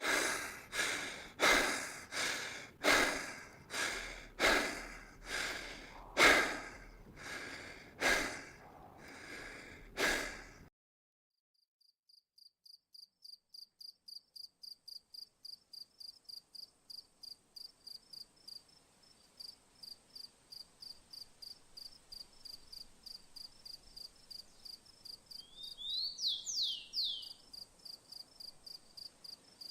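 A run of about a dozen short, breathy whooshes, one under a second apart, fading toward the end. After a brief silence comes a cricket's fast, high-pitched, steady chirping, with a couple of quick bird chirps near the end.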